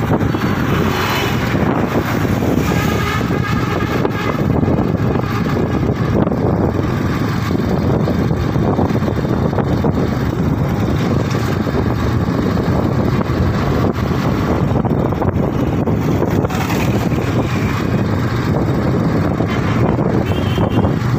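Steady wind buffeting the microphone over the running engine and road noise of a motorcycle at riding speed.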